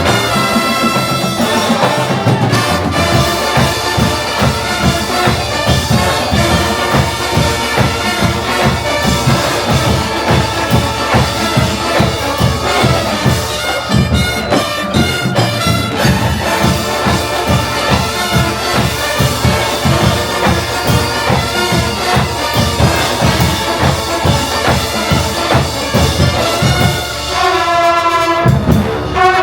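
Drum and bugle corps playing a pop medley: bugles and brass holding sustained chords over a steady pulse of marching drums.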